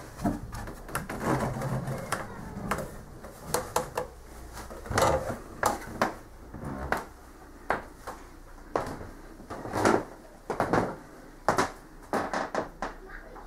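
Irregular knocks, clicks and clatter of things being moved and handled in a small wood-panelled room, with a few short louder bursts of clatter.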